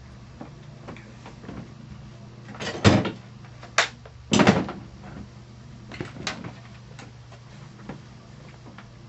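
Knocks and thuds from a chiropractic adjustment on a treatment table with the patient lying face down: three loud, short knocks in quick succession three to five seconds in, then two fainter ones around six seconds, over a low steady hum.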